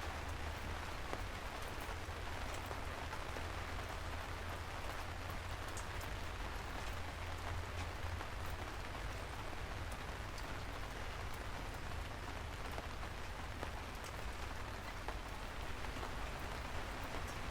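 Steady rain falling: a continuous hiss with scattered single drops ticking through it, over a steady low rumble.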